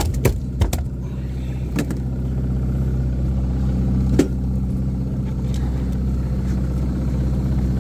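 A boat's motor running steadily at trolling speed, a constant low hum. A few sharp knocks and taps cut through it in the first second, and again near two and four seconds in.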